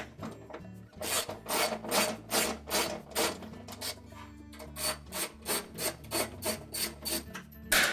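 Ratchet with a short extension backing out the 3/8-inch bolts that hold a washer's outer tub to the tub cover support: a run of quick ratchet strokes, about three a second, a pause of about a second, another run, and one louder stroke at the end.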